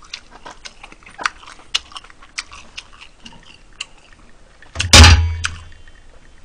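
Small scattered mouth clicks and chewing noises of a person eating, then sipping from a glass, with one loud sudden burst with a deep rumble about five seconds in, close to the microphone.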